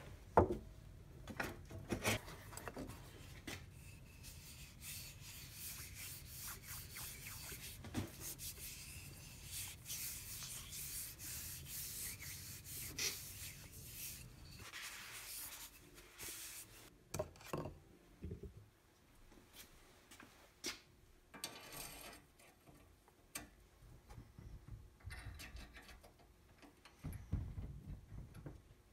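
A knock just after the start, then a hand rubbing boiled linseed oil into a wooden saw handle: a steady rubbing hiss for about fifteen seconds. After that come scattered clicks and knocks of handling.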